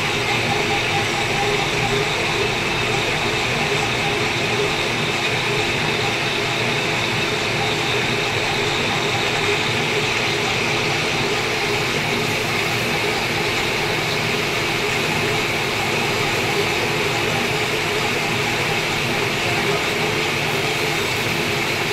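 Lathe running steadily, a constant mechanical hum and whine with no pauses.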